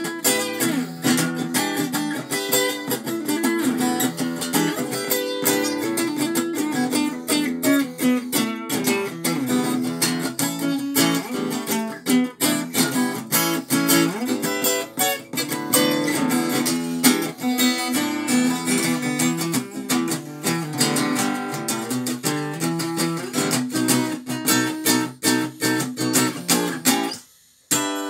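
Acoustic guitar played in a steady flow of picked notes and strums. The playing breaks off briefly about a second before the end, then starts again.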